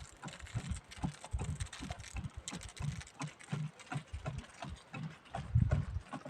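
Uneven series of dull low thumps, about two a second, with light clicks between them; the loudest thumps come near the end.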